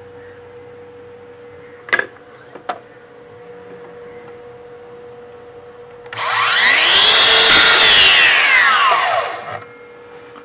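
Makita LS002GZ 40V cordless slide compound mitre saw started about six seconds in: its motor whine rises as the 216 mm blade spins up, it cuts through a piece of wood, and the whine falls away as the blade winds down some three and a half seconds later.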